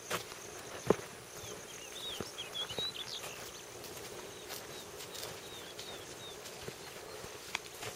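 Outdoor ambience of birds chirping, with a cluster of short chirps about two to three seconds in, over a steady high insect hum. A single sharp click about a second in is the loudest sound.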